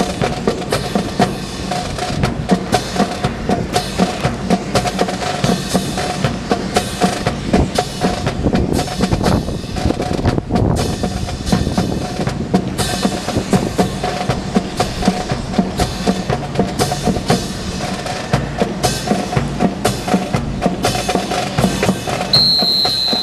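Marching drum cadence of snare and bass drum keeping a quick, steady beat for the drill. A high, steady tone sounds briefly near the end.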